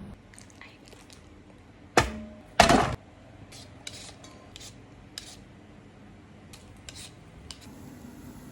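Kitchen utensils knocking and clinking against dishes: two loud knocks a little under a second apart, the second ringing briefly, then a scatter of light clicks.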